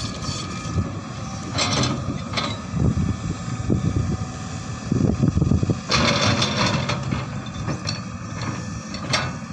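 Tracked excavator working a trench: its diesel engine runs steadily under load as the bucket digs, with two louder bursts of rushing, scraping noise about two seconds in and again about six seconds in.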